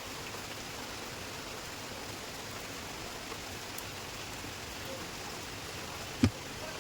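Steady hiss with a single sharp knock near the end, during hand work on a starter motor.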